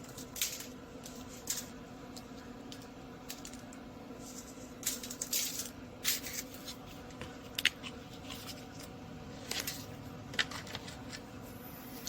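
Scattered light clicks and rustles of hands handling food and containers while brown sugar is spread over pork ribs, over a steady low hum.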